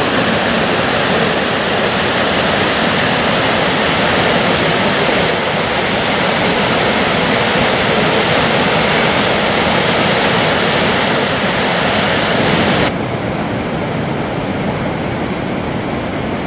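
Gullfoss waterfall on the Hvítá river: a loud, steady rush of falling water. About three-quarters of the way through it drops suddenly to a quieter, duller rushing noise.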